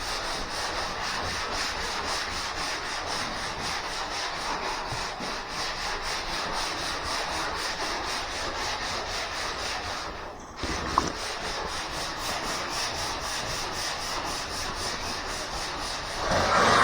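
Sandpaper rubbed back and forth over a car body panel, a steady scratchy rasp that breaks off briefly about ten seconds in, with a single click just after.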